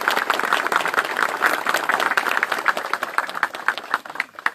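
Mourners applauding after a eulogy: many hands clapping at once, thinning out near the end into a few last separate claps.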